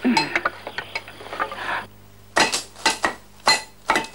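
Axe heads clinking against each other: several sharp metal clinks in quick succession in the second half.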